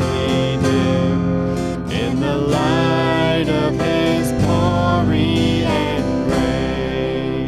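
Worship band music led by strummed acoustic guitar, playing an instrumental passage of a hymn with sustained chords.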